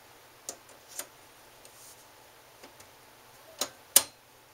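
Sharp clicks and taps of a screw being driven to fasten a PCI Express expansion card's metal bracket to a desktop computer case: a few light clicks, then two louder ones near the end, the last the loudest.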